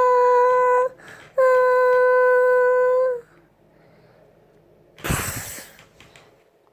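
A voice holds a long, steady, high wail in two stretches, with a short break about a second in. Near the end comes one short, loud burst of noise.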